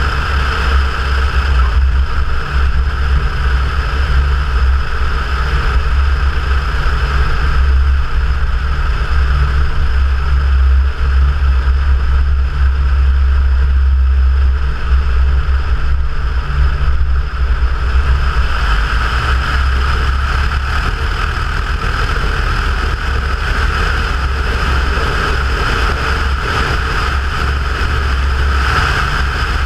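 Cessna 172's piston engine and propeller running steadily, a loud continuous drone as heard in the small plane's cabin; a higher rushing band eases for several seconds in the middle and comes back.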